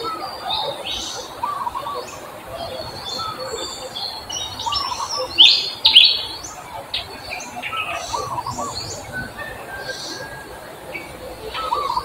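Forest birds calling and chirping. A short phrase of a few quick notes repeats every three or four seconds, with scattered high chirps over it. The loudest sounds are two sharp chirps about halfway through.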